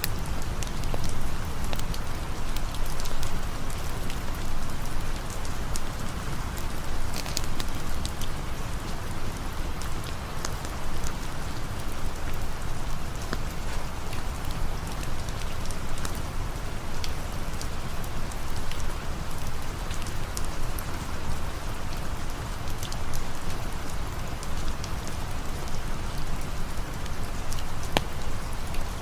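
Steady rain falling, with scattered sharp ticks throughout.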